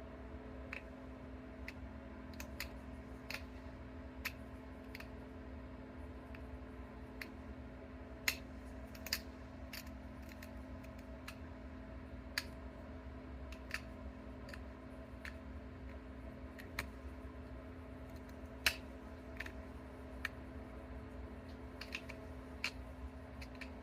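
Bottle glass being pressure-flaked: sharp, irregular clicks as flakes snap off, about one a second, over a steady low hum.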